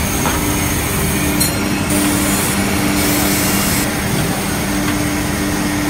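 Reciprocating horizontal band saw for wood running steadily as a wooden block passes through its cutting head and out along its conveyor: a continuous machine hum with two steady low tones.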